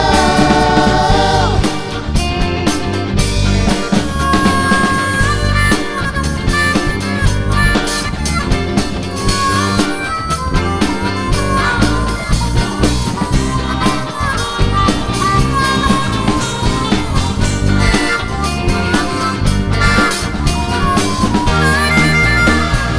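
Rock band playing with drums, bass and electric guitar under a bending harmonica lead line; a sung vocal line ends about a second and a half in.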